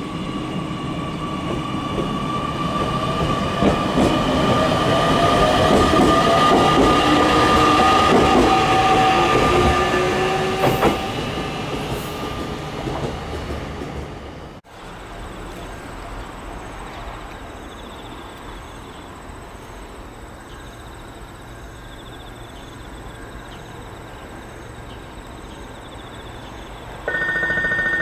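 JR Kyushu 817 series electric train running into the station, its motors and wheels giving several steady high tones with a gliding whine that swell and then fade. The sound drops suddenly to quiet background about halfway through, and near the end an electronic two-tone station alert starts, the kind that warns of an approaching train.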